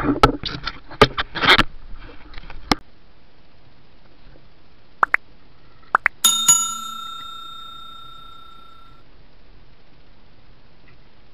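Sharp knocks and rattles in the first three seconds, then a few crisp clicks and a bright bell ding about six seconds in that rings out and fades over a few seconds: the click-and-bell sound effect of a subscribe-button animation.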